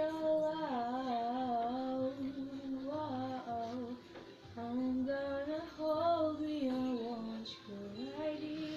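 A high voice singing a slow melody with long held, wavering notes, breaking off briefly about four seconds in before carrying on.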